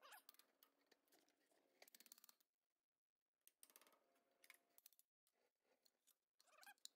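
Very faint metallic clicks and scrapes of pliers working a steel cotter pin out of the tractor lift linkage's lower pin, in a few short spells with near silence between.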